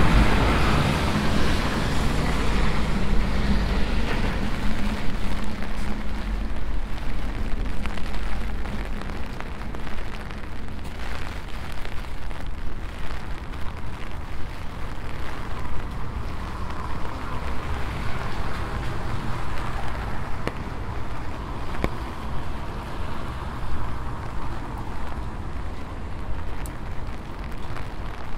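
Rain falling on a wet city street, with a vehicle passing close by at first: a low rumble and steady hum that fade away about eight seconds in. After that, steady rain with scattered small drip ticks.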